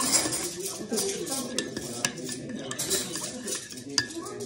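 Metal spoon stirring hot chocolate in a ceramic mug, with repeated irregular clinks and scrapes against the sides of the mug.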